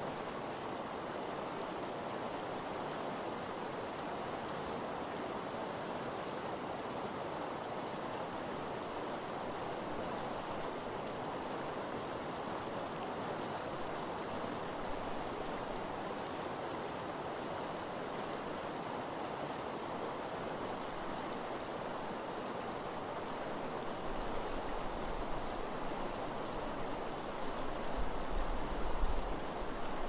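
Eel River water rushing steadily over shallow gravel riffles, an even, unbroken flow sound. A low, uneven rumble joins in near the end.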